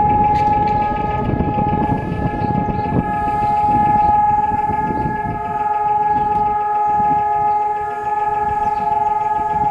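Israeli civil-defence siren sounding the Memorial Day alert: one steady, unbroken tone, held with no rise and fall, the call for a standing moment of silence. Several sirens at slightly different pitches sound together.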